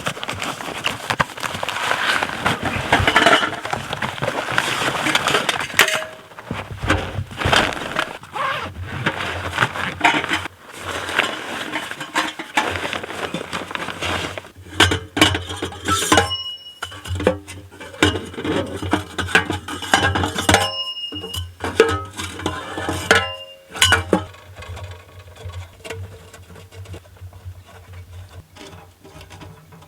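Metal clinking and clanking as the tent's wood stove and its pipe sections are handled and set up, some strikes ringing briefly, over background music.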